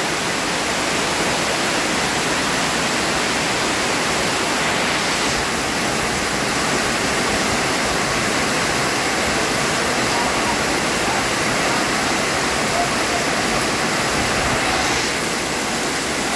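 Heavy rain pouring down in a tropical storm: a steady, dense hiss of rain falling on waterlogged ground and puddles.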